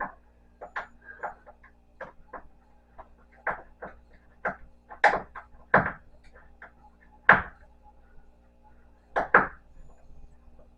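Irregular clicks and knocks from handling tools, screws and parts while taking apart a treadmill, with a few louder knocks in the middle and near the end.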